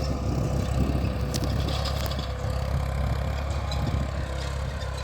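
Tractor engine running steadily with a low, even hum while ploughing, with a few light clanks.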